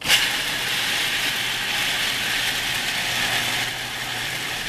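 Electric food processor switched on, its motor starting suddenly and running steadily as it chops soaked chana dal (split Bengal gram) into a coarse paste.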